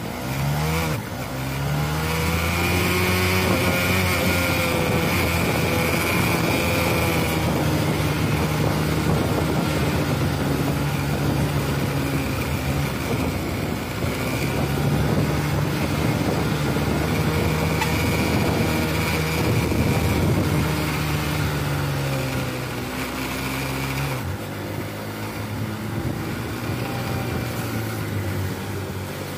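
A heavily loaded Mitsubishi Canter truck's diesel engine labouring up a steep climb. It revs up at the start, then holds a steady pitch, with a high, steady whine over it for much of the time.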